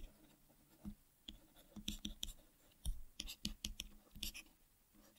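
Faint, irregular taps and scratches of a stylus writing on a tablet, with light clicks clustered from about one to four and a half seconds in.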